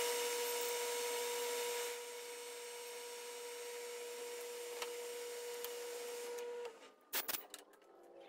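Metal lathe running with a steady whine while a twist drill is run back into the pilot hole of a spinning brass workpiece, with a cutting hiss over the first two seconds. The drill is then withdrawn and the lathe runs on more quietly. Near the end the whine cuts off suddenly and a few short clacks follow.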